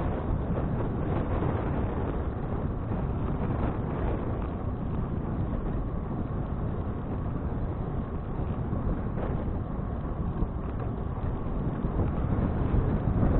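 Steady wind rushing over an action camera's microphone while riding a bicycle, a low, even rumble with no break.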